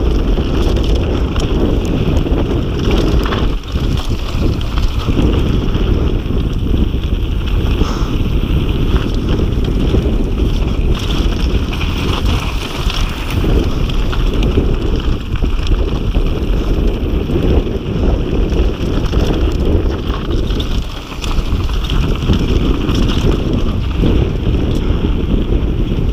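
Wind buffeting the microphone over the rumble of a downhill mountain bike's tyres on a loose dirt and gravel trail at speed, with a constant patter of small knocks and rattles from the bike.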